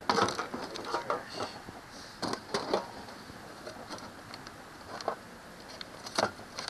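Plastic drink cups and bottles dropped and pushed into a plastic trash can, making a series of short clatters and knocks, the loudest right at the start.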